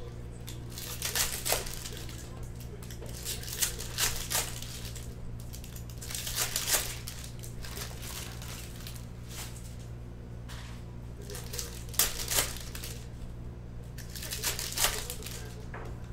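Wrappers of 2020 Bowman baseball card packs crinkling in irregular sharp crackles as packs are handled and opened, over a steady low hum.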